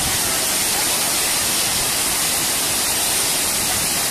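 Steady, unbroken rush of a large waterfall cascading down a steep valley, heavy with spray.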